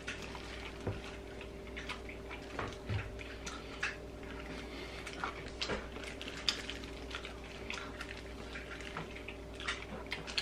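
Two people chewing chicken wings: scattered short wet mouth clicks and smacks over a steady faint hum.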